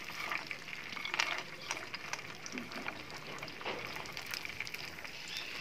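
Nuts and dried fruit (raisins, pistachios, walnuts, almonds, cashews, coconut slices) being pushed off a spatula into a frying pan with a little warm oil, landing with scattered light clicks over a faint sizzle.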